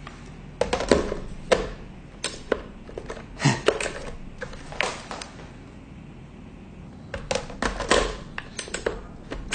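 Irregular clicks, taps and knocks of hard objects being handled, in uneven clusters with a quieter gap in the middle.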